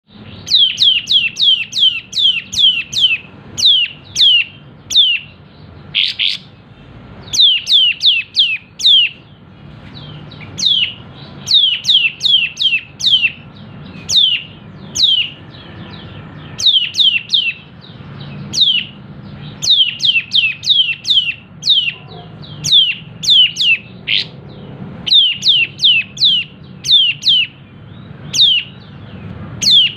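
Kapas tembak songbird calling in fast runs of sharp, downward-sliding notes, about four or five a second, with short pauses between runs. A faint steady hum sits underneath.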